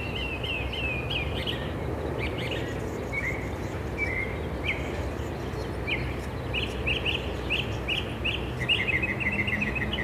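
Northern mockingbird singing: phrases of short notes, each repeated several times, with a quick run of notes near the end, over a steady low background hum.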